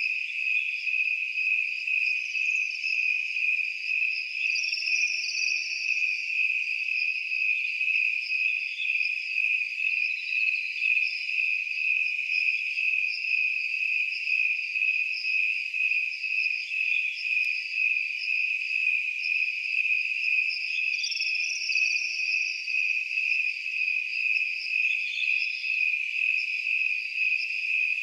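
Crickets chirping at night: a steady, high-pitched, pulsing chorus.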